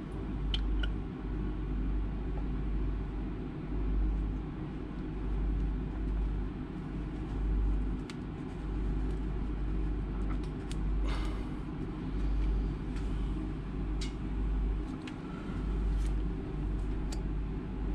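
Steady low rumble of engine-room machinery, a hum of several steady tones with a pulsing deep low end. A few faint clicks and scrapes come from a spin-on fuel filter canister being handled and threaded onto its filter head.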